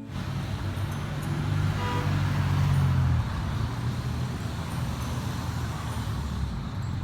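Outdoor city ambience: steady road-traffic rumble, with the low drone strongest for the first three seconds before easing.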